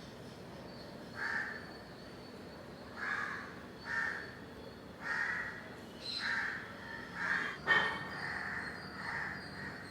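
Crows cawing over and over, about ten short caws spaced unevenly through the stretch, with a sharp click just before the eighth second.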